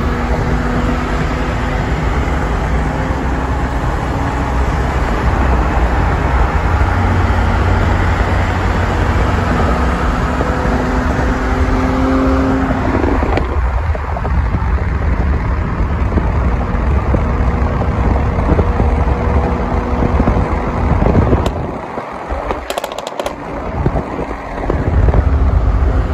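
A90 Toyota Supra driving slowly past. Its engine is a steady drone that rises a little and then stops about halfway through, under heavy wind rumble on the microphone. A few sharp clicks come near the end.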